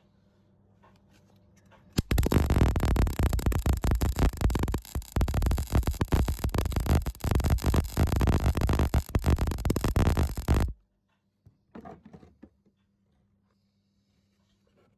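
MIG welder arc crackling and spitting for about eight and a half seconds, starting about two seconds in and cutting off suddenly, uneven with brief dropouts. It is a practice run by a first-time welder, who judges the result not good at all.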